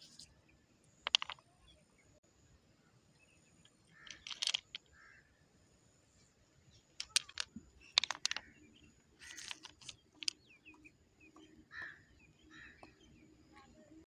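Rounded river pebbles clicking and clacking against one another as a hand moves through them and picks one up, in several short clusters of sharp knocks.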